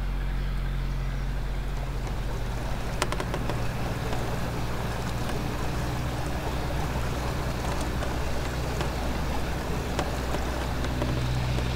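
Canal barge's engine running steadily under way: a low, even hum that holds without change.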